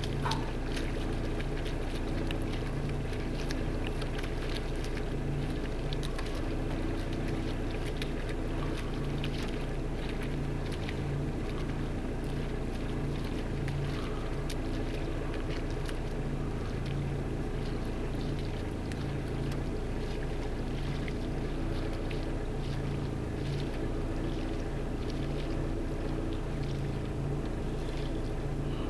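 A motor engine running steadily with a low, even rumble.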